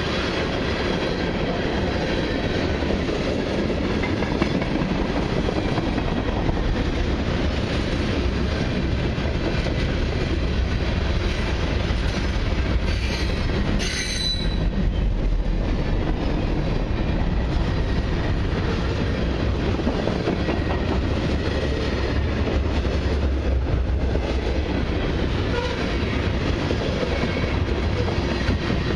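Freight cars of a long mixed freight train rolling past on jointed track: a steady rumble of steel wheels on rail with clatter, and a sharp clank about halfway through.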